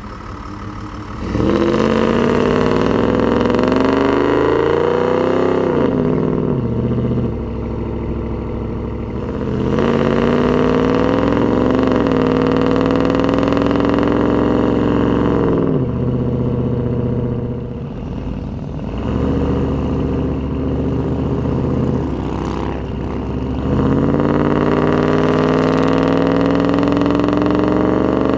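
Dodge Durango's engine through an aftermarket Magnaflow exhaust, pulling away and accelerating. The exhaust note climbs in pitch and falls back at each of several upshifts.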